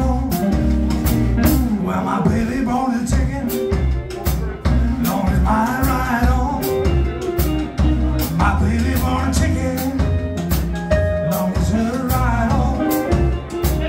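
Live blues band playing: electric guitar, upright double bass and drum kit, with the drums keeping a steady beat.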